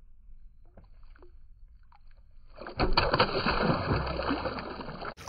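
A speckled sea trout thrashing at the surface beside a kayak hull, splashing and throwing spray. Fairly quiet at first with a few faint ticks, then a burst of splashing about two and a half seconds in that lasts around two and a half seconds.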